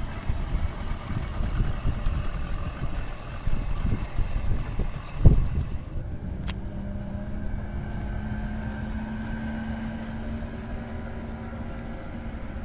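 Boat engine running with wind buffeting the microphone and a sharp thump about five seconds in, then settling into a steady low idle.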